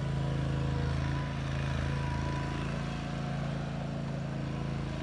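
Small engine of a ride-on bunker machine running steadily as the machine drives, with a lawnmower-like hum that eases off slightly about a second in.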